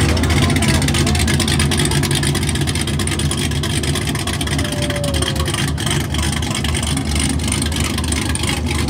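Cadillac CTS coupe engine running at idle, with a loud, steady, low exhaust note from its tailpipes.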